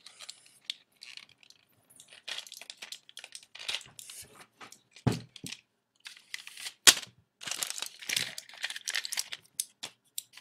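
Plastic packaging of a pack of miracle berry tablets crinkling and tearing as its seal is broken by hand, in many irregular crackles. A dull thump comes about five seconds in and a sharp crack, the loudest sound, about seven seconds in.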